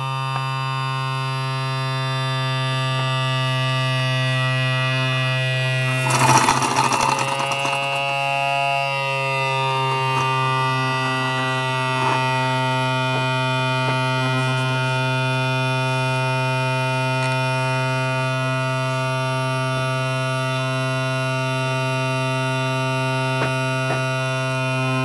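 Small DC diaphragm air pump running steadily with a loud electric hum, pumping air into a plastic-bottle tank. About six seconds in there is a loud burst of noise lasting a couple of seconds, and the pump's pitch dips slightly after it.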